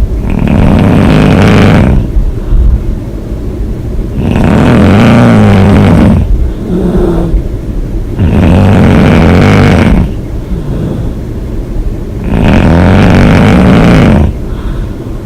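A woman snoring hard: four long, loud snores about four seconds apart, each lasting about two seconds, with quieter exhales between them.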